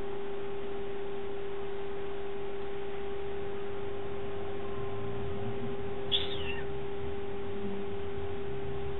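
A steady hum on one constant tone, with a short high squeak that falls in pitch about six seconds in.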